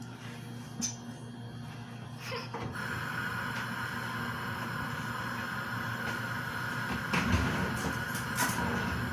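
Steady kitchen hum, joined about three seconds in by a higher, steady whir, with a few light clicks and knocks, most of them near the end.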